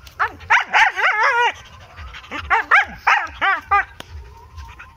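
Dog barking angrily in two quick bursts of several barks each, with a short pause between them.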